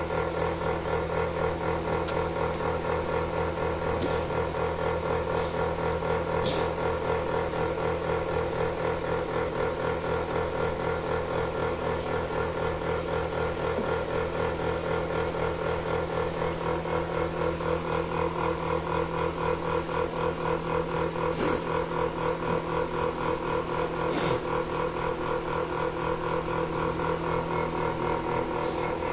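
Milking machine running: a steady drone from the vacuum pump with a fast, even pulsing, and a few brief high-pitched hisses.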